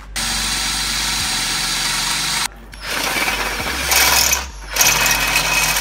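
Power drill with a step drill bit boring a hole through a steel exhaust pipe for an O2 sensor bung, in three runs of a few seconds with short stops between, the later runs louder and harsher.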